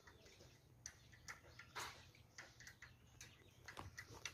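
Near silence: faint ambience with a few scattered soft clicks and ticks.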